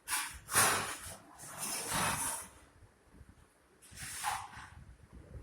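Labrador puppy busy with a datun twig, four short hissing, breathy bursts of noise, the loudest about half a second in.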